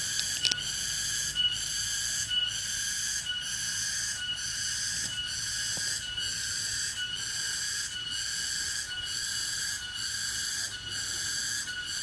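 Cicada song: a continuous pulsed buzzing at about two pulses a second. A couple of light clicks come about half a second in.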